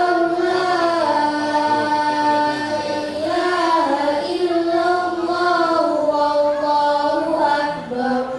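A child's voice reciting the Qur'an in a drawn-out melodic chant, holding long notes that rise and fall. The phrase ends about eight seconds in.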